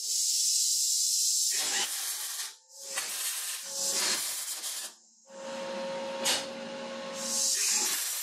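MIG welding arc hissing and crackling in several bursts of one to two seconds, with short breaks between them. A sharp click about six seconds in.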